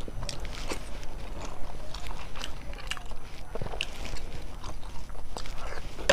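Close-miked chewing with wet mouth clicks and smacks, a string of short irregular ticks as food is eaten.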